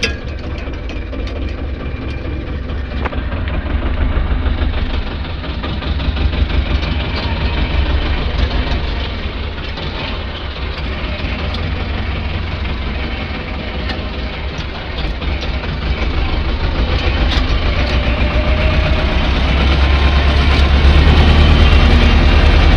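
Vladimirets T-25 tractor's air-cooled two-cylinder diesel engine running while the tractor drives, heard from the driver's seat with a heavy low clatter; it grows louder in the last few seconds.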